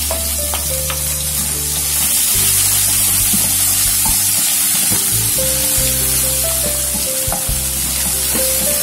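Sliced onions sizzling in hot oil in a non-stick kadai, stirred and scraped with a wooden spatula, over background music of held notes.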